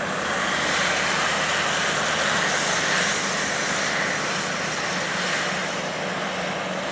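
Boeing 737-800's twin CFM56-7B turbofan engines at takeoff thrust as the airliner starts its takeoff roll. The steady jet noise with a strong hiss builds over the first second or so, holds, and eases slightly near the end.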